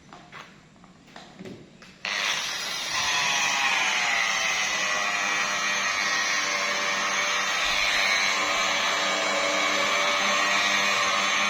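Electric car-paint polishing machine switched on about two seconds in and running steadily, after a few light knocks.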